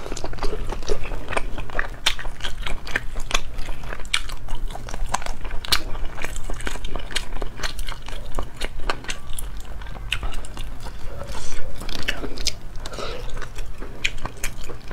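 Close-miked biting and chewing of braised squid, a dense run of short wet clicks and crunches.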